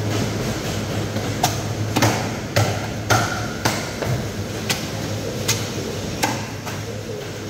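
Cleaver chopping through a threadfin fish on a thick wooden chopping block: about eight sharp knocks at irregular intervals, most closely spaced in the middle, over a steady low hum.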